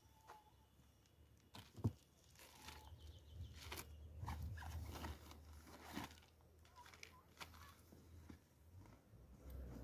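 Faint handling noises: plastic bags wrapping the cables rustling and crinkling, with scattered small clicks and one sharp knock about two seconds in.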